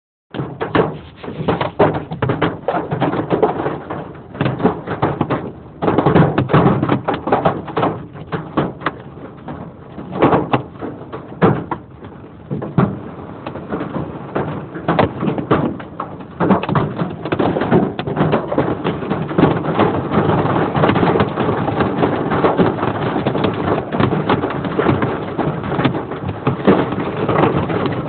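Hailstones half an inch to an inch across pelting hard surfaces in an irregular clatter of sharp impacts. The hits thicken into a steady, dense clatter in the second half.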